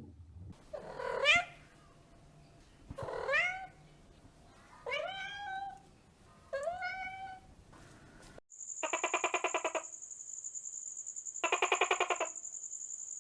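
A cat meowing four times, each meow rising in pitch and then levelling off. About eight seconds in, a steady high-pitched whine starts, and two rapidly pulsing calls follow.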